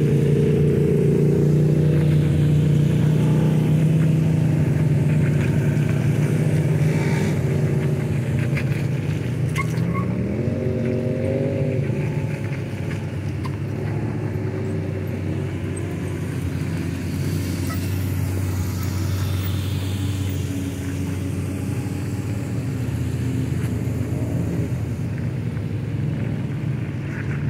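A line of side-by-side off-road UTVs driving slowly past one after another, their engines running in a steady drone, with one engine revving up about ten seconds in.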